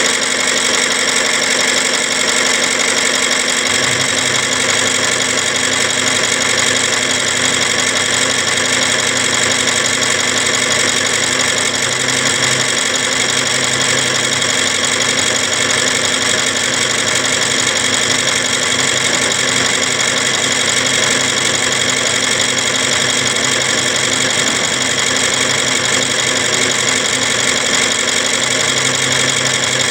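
Machinery running steadily, engine-like: loud, constant noise with several steady tones. A low hum comes in about four seconds in and drops out briefly a couple of times.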